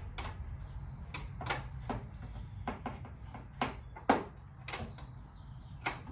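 Sharp metallic clicks and knocks, irregular and about one every half second, from hand tools working at tight door-hinge bolts that have never been undone, over a low steady hum.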